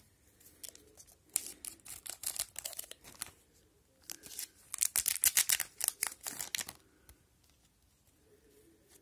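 Foil wrapper of an Upper Deck hockey card pack crinkling and tearing open by hand, in two spells of crackling about a second in and again around four seconds in.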